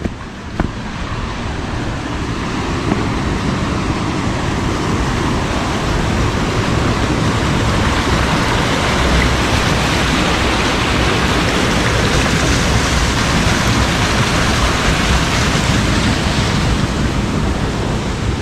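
Hayburn Wyke waterfall's steady rush of falling water, growing louder over the first several seconds as it is approached, then holding steady.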